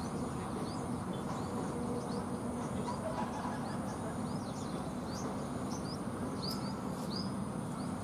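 A bird repeating short, high, falling chirps about once or twice a second over a steady outdoor background noise.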